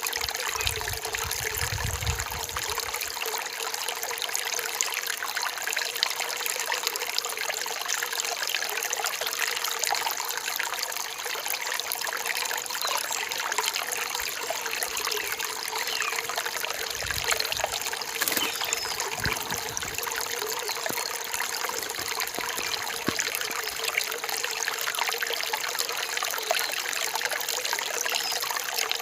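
Forest stream trickling and splashing over rocks in a steady, continuous rush of water.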